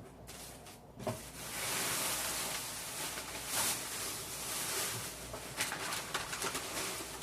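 Crinkling rustle of packaging being handled, starting about a second in after a few light clicks.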